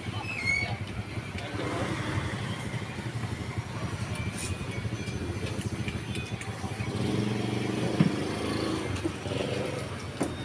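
Motor vehicle engine running steadily, growing louder from about seven seconds in, with a sharp click about eight seconds in.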